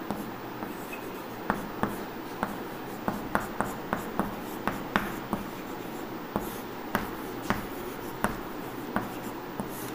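Chalk writing on a blackboard: a run of short, irregular taps and light scratches as the letters are formed.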